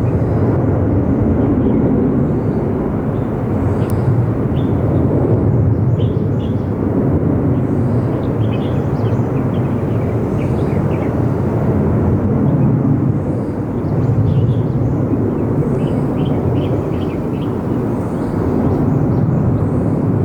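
Jet airliner engines rumbling steadily from across the airfield, a low, even roar that swells and eases slightly, with faint bird chirps above it.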